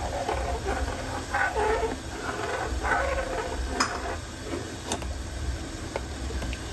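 Steel ladle stirring hot milk in a metal pan on a gas burner, scraping through the liquid over a steady hiss, with a couple of sharp clinks of the ladle against the pan about four and five seconds in.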